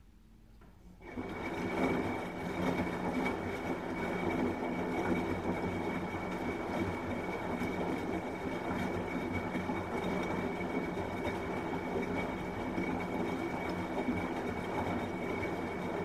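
Front-loading washing machine running: about a second in its motor starts turning the drum, giving a steady mechanical hum with a thin high whine on top.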